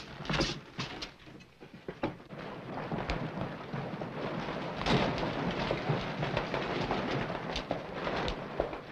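Boot footsteps knocking on wooden floorboards, then a steady rumbling street noise scattered with knocks and clatter, beginning about two seconds in.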